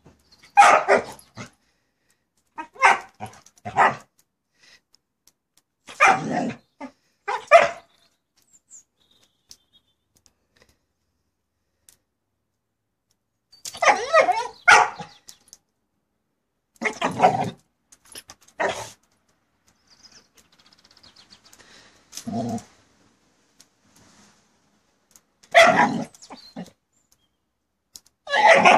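A dog barking, a bark or two at a time every few seconds, with quiet pauses in between.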